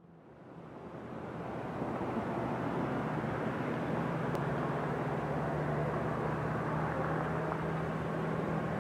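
A steady low engine rumble with a broad roar and a constant low hum, fading in from silence over the first couple of seconds.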